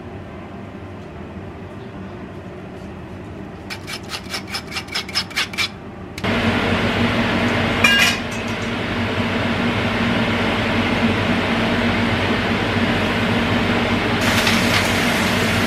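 A quick run of about a dozen scraping strokes that grows louder over two seconds. Then a range hood fan switches on suddenly and runs steadily with a low hum over stir-frying in a pan, with a brief clink soon after and a hiss joining near the end.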